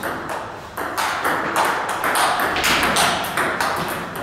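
Table tennis balls clicking off rackets and the table in a fast rally, several sharp ticks a second.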